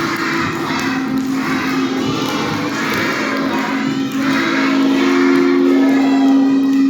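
A group of young children shouting and chattering together, over a steady low tone.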